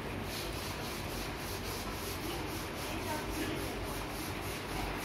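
Steady rubbing and rustling noise on a handheld phone's microphone, with a faint rapid pulsing in the hiss, about three pulses a second.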